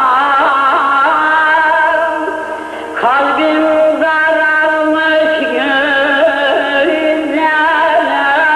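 Turkish folk music of the Harput (Elazığ) style: a heavily ornamented melody line that wavers and bends in pitch, dropping quieter about two seconds in before a new phrase starts about three seconds in.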